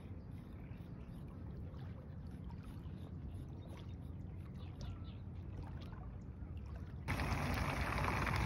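Light knife scraping as the slime is scraped off a channel catfish's skin, over a low steady rumble. About seven seconds in, a cut to the steady, louder sizzle of catfish fillets deep-frying in oil.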